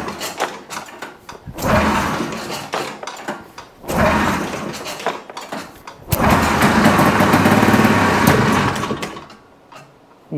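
1980 Arctic Cat El Tigre 5000 snowmobile's two-cylinder, free-air-cooled two-stroke engine being pull-started, now with spark from a new CDI and ignition coil. It fires briefly three times, about two seconds apart, then catches about six seconds in and runs for some three seconds before dying out.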